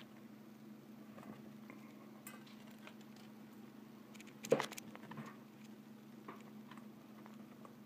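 Faint handling noise: small scattered clicks and rubs over a steady low hum, with one louder short rustle-like sound about four and a half seconds in.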